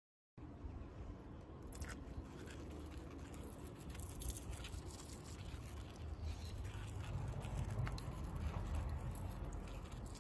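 Water squirted from a plastic squeeze bottle pattering onto the plants' leaves and potting soil, with a few small clicks over a low rumble.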